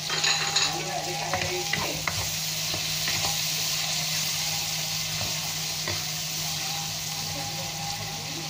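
Prawns, onions and chillies sizzling in hot oil in a frying pan as a spatula stirs them, with a few quick scrapes and taps of the spatula on the pan in the first couple of seconds, then a steady frying hiss. A steady low hum runs underneath.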